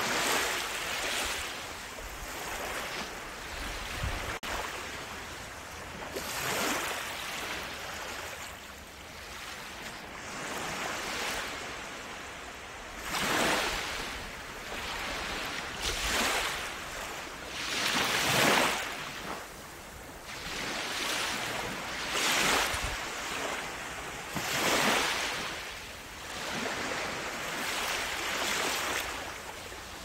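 Sea waves washing in one after another, each surge swelling and fading over a couple of seconds at an uneven rhythm.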